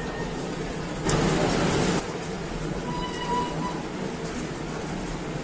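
Popcorn production line machinery running with a steady hum. About a second in, a loud hiss cuts in, lasts about a second and stops abruptly, and a faint short high tone sounds about three seconds in.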